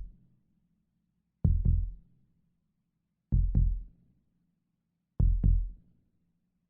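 Normal heartbeat sound effect: slow, steady lub-dub beats, each a pair of low thumps close together, repeating a little under two seconds apart, three times.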